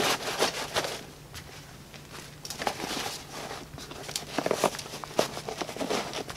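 Nylon fabric of a Vanquest Trident 20 backpack rustling and scraping in short irregular handling noises as its front pocket is folded up and pressed closed by hand.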